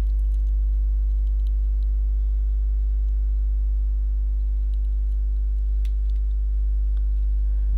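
Steady low electrical hum in the recording, unchanging throughout, with a faint click about six seconds in.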